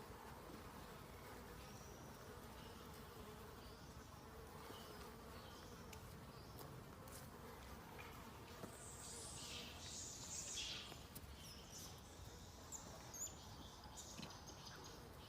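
Faint, steady insect buzzing, with a few brief higher-pitched noises about two-thirds of the way through.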